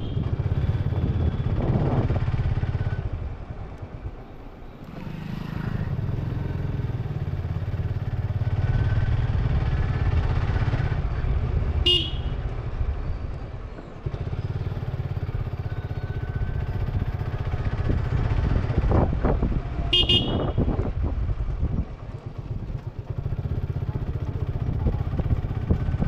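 Suzuki Gixxer 155's single-cylinder four-stroke engine and exhaust under way, the throttle rolled off and back on a few times. Two short horn toots come about halfway through and again a few seconds later.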